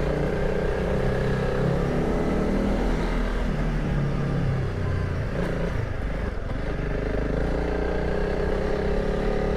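Honda CRF300 Rally's single-cylinder engine running steadily as the motorcycle rides at low speed along a dirt track and through a short railway tunnel.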